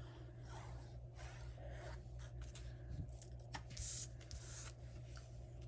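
Cardstock and patterned paper being handled and shifted on a craft mat: faint rustles and light scrapes with a few small taps, and a brief brighter rustle about four seconds in.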